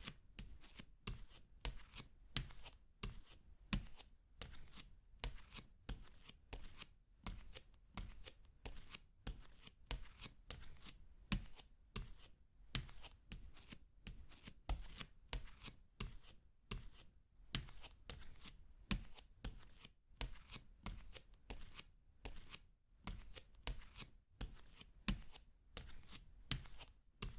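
Barefoot footsteps on a wooden floor: soft, steady steps at a walking pace, about one and a half to two a second.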